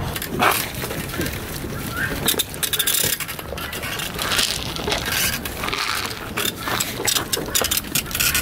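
Goats jostling at a wooden and wire-mesh fence during hand-feeding: an irregular run of clicks, knocks and rustles from hooves, heads and the rattling wire, over a low rumble.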